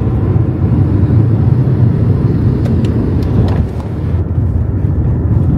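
Steady low road and engine rumble of a moving car, heard from inside the car. It eases a little about three and a half seconds in.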